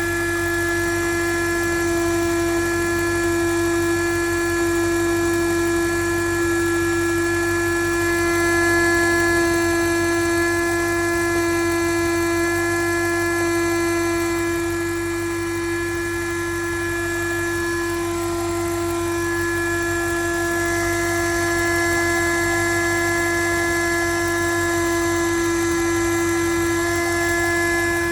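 Steady buzzing hum from a BMW N62 4.8 V8 engine, holding one constant pitch with overtones above it and a fainter low drone beneath.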